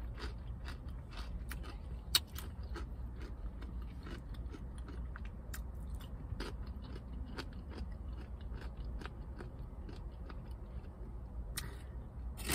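Close-up chewing and crunching of spicy Doritos tortilla chips eaten with bean dip: a scatter of short, sharp crunches over a low steady hum.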